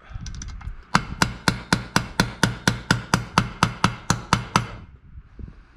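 Rapid, evenly spaced hammer taps, about four a second for nearly four seconds, driving a part home into an engine crankcase half.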